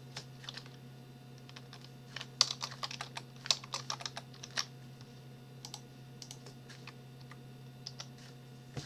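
Typing on a computer keyboard: irregular keystrokes in quick runs, thickest between about two and five seconds in, then a few single keystrokes, over a low steady hum.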